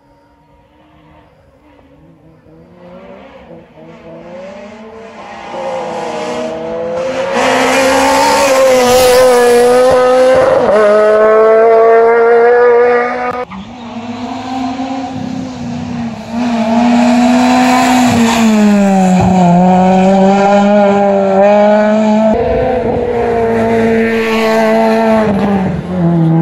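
Rally car's engine coming closer from far off, loud from a few seconds in and revving hard, its pitch climbing and dropping again and again through gear changes and lifts, with a sudden cut in level about halfway before it pulls hard again.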